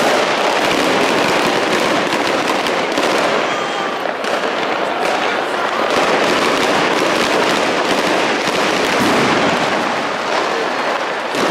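Many fireworks and firecrackers going off at once: rapid, overlapping bangs and crackles without a break.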